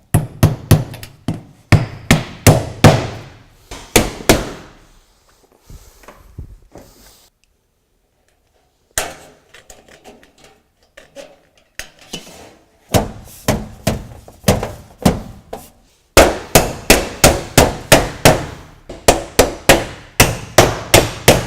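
Hammer blows on steel roofing shingles, in quick runs of about two to three strikes a second, with a few quieter seconds near the middle.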